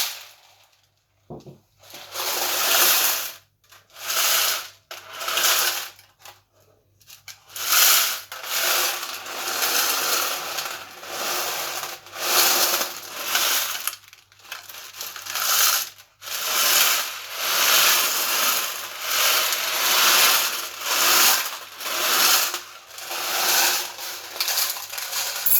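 Unicorn sprinkles rattling and swishing across a tin foil tray as it is shaken, in repeated surges about once a second.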